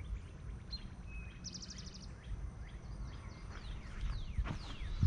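Birds calling: a quick high trill, then several short, downward-sweeping chirps, over a steady low background rumble.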